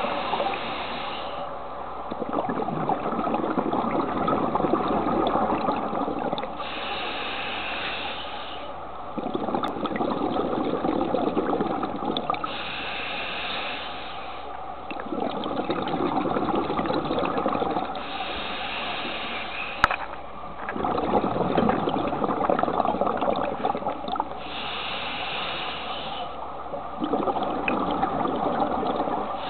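Scuba diver breathing through a regulator underwater: a hissing inhale, then a long burst of bubbling exhaust, in a slow regular cycle about every six seconds. A single sharp click about two-thirds of the way through.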